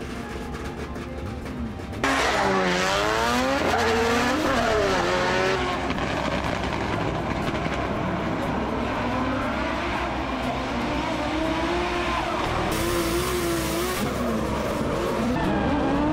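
Drift cars in a tandem battle. About two seconds in the sound jumps louder, and the engine note sweeps sharply up and down as they rev hard, then holds at high revs over a steady screech of sliding tyres.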